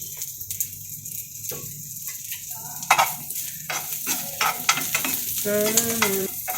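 Sliced onions frying in hot oil in a pan, sizzling steadily, with a spatula scraping and knocking against the pan now and then as they are stirred.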